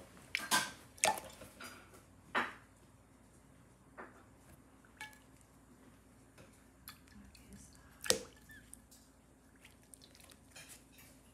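An American robin splashing in a shallow indoor bird bath: irregular splashes and flicks of water, several in quick succession over the first couple of seconds, then scattered ones, with a sharp splash near the end.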